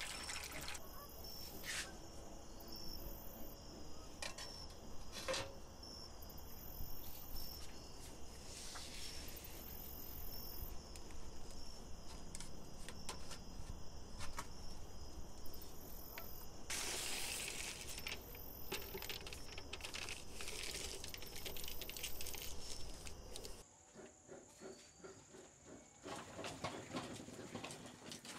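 Crickets chirping steadily in the background, with scattered clicks and knocks of handling. A brief louder rustling noise comes about 17 seconds in, and the chirping stops about 24 seconds in, leaving soft tapping.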